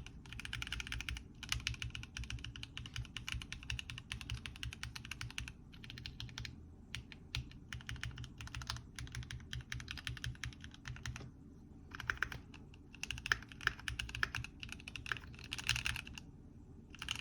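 Fast typing on a Keychron Q7 mechanical keyboard with Gateron G Pro switches and PBT keycaps: a dense run of key clicks, broken by a few short pauses.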